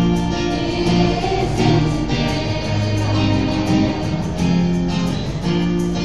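Acoustic guitar strumming chords over a steady beat on a cajon, with little or no singing: a live instrumental passage of a worship song.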